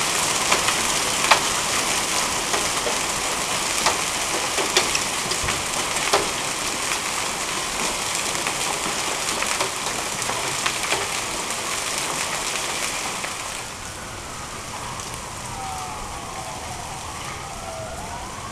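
Gumball-sized hail and rain pelting puddled pavement: a dense hiss with sharp clicks of single hailstones striking. About two-thirds of the way through, the downpour eases and grows quieter, and a siren rises and falls faintly over it in the last few seconds.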